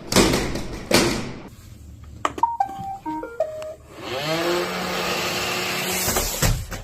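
Roomba robot vacuum crashing down the stairs with two heavy clattering impacts. It then plays a short tune of electronic beeps, typical of its error alert, and its motor whirs for about two seconds before cutting off, followed by a few more knocks near the end.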